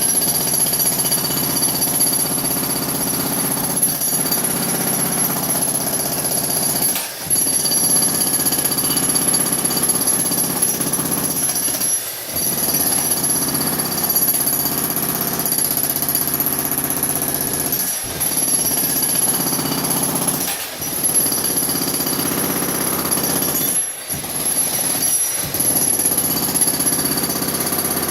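Makita jackhammer hammering continuously, with several brief breaks where the hammering stops for a moment.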